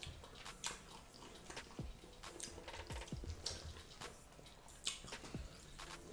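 Faint, wet eating sounds: irregular small clicks and smacks of chewing and of fingers picking apart fish in pepper soup.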